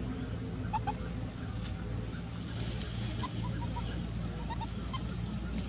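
Outdoor background with a steady low hum and a few faint, short, high chirps scattered through it.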